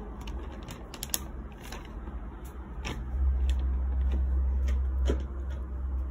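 Handling noise: scattered light clicks and rustles over a steady low rumble, which grows louder about three seconds in.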